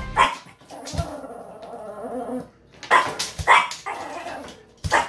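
Small dog barking: four sharp barks, two of them close together about three seconds in, with a fainter wavering sound between them.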